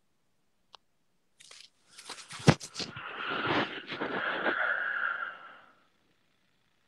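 Close rustling and crunching, with a sharp knock about two and a half seconds in, followed by a steadier rustle that fades out about six seconds in.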